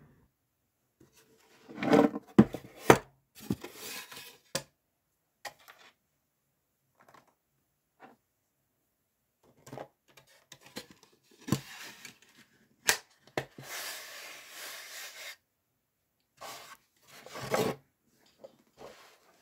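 Intermittent handling noise: sharp knocks and clicks with stretches of rubbing and scraping, as plastic action figures and a small wooden box are handled. A cluster of loud knocks comes about two seconds in, and the longest scrape comes about three quarters of the way through.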